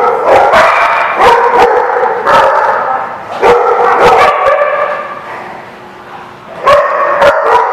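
Dogs at play barking, a loud run of repeated barks, then a brief lull and a few more barks near the end.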